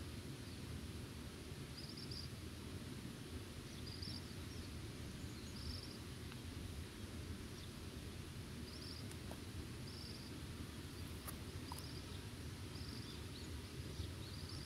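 Rural outdoor ambience: a steady low rumble with short, high chirps that repeat every second or two.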